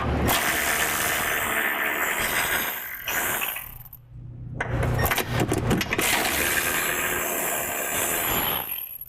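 Power wrench running the nuts off the factory front bumper's mounting studs on a Jeep Wrangler JK. It runs in two long spells, broken by a short pause about four seconds in.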